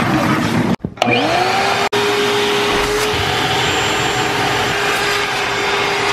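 Small 1.5-gallon Shop-Vac wet/dry vacuum running, its hose nozzle sucking over van carpet and seats. It cuts out briefly twice in the first two seconds, then runs on with a steady whine.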